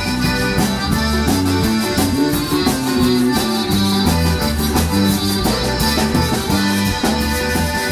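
Live zydeco band playing an up-tempo stretch with no singing: accordion, electric guitar, bass and drums, with a washboard keeping time.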